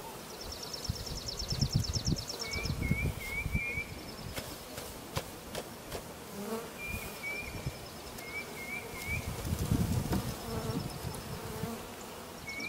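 Honey bees buzzing in a steady hum around an open hive as a package of bees is shaken in. Louder low gusts of noise rise twice, with a few light knocks. A bird sings in the background, repeating a fast high trill and short chirps.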